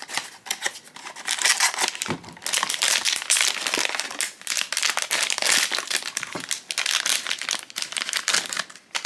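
Foil blind-box bag crinkling and crackling as hands pull it from its cardboard box and tear it open, with a few brief pauses.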